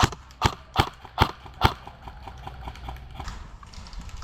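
Airsoft rifle fired in single shots: five sharp cracks about two a second, then fainter ticks.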